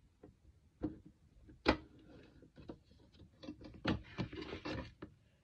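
Light knocks, taps and rubbing of small items being handled and set into a plastic skincare storage organiser, with one sharper knock a little under two seconds in and a quick run of taps around four seconds in.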